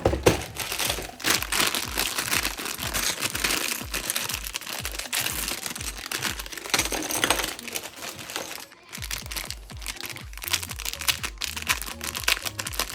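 Background music with a fast steady beat and crisp clicking percussion, starting abruptly and dropping out briefly about nine seconds in.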